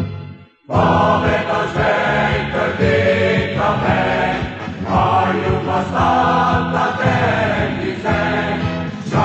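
Choir singing in phrases of about a second or two each. It starts sharply just under a second in, after a brief drop to near silence as the music before it dies away.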